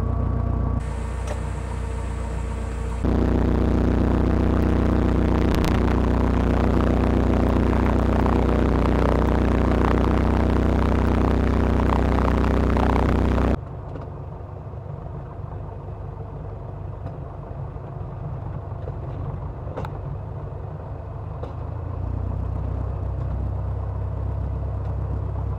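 Robin DR500 light aircraft's piston engine and propeller running steadily at low power while taxiing, heard through onboard cameras. It is louder from about three seconds in, then drops abruptly to a quieter, more distant sound at about thirteen seconds, rising a little again near the end.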